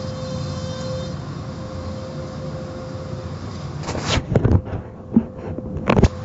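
Automatic car wash heard from inside the car: a steady rumble of machinery and spray with a faint constant hum. From about four seconds in, soft-cloth brushes slap and thump against the car several times, loudest near the end.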